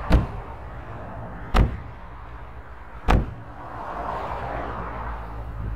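Three sharp knocks on the steel cab of a Same Explorer 80 tractor, about one and a half seconds apart, over steady low background noise.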